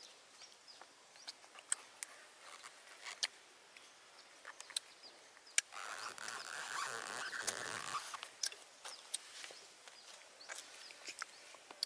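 Small clicks and rustles of a tissue and cloth being handled while a baby macaque is wiped, with a louder stretch of rustling from about six to eight seconds in.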